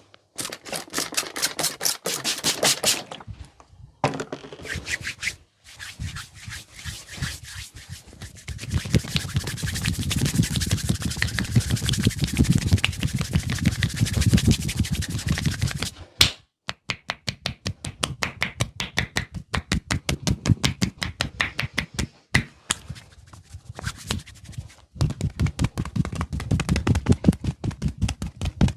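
Massage strokes: hands slapping in fast, even runs of several strikes a second, with a stretch of vigorous rubbing from about a third of the way in to just past halfway.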